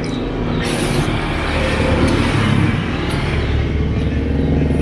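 A motor vehicle engine running close by, with a rapid low pulsing, slowly getting louder.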